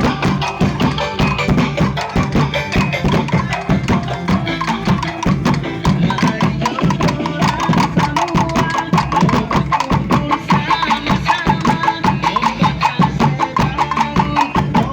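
Loud music with a fast, dense percussion beat, the strikes packed closer together in the second half.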